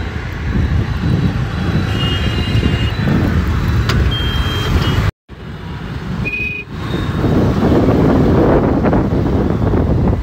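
Road and wind noise from riding a motorbike or scooter through city traffic, with a few short, high-pitched beeps or toots from the traffic around. The sound cuts out completely for a moment about halfway through.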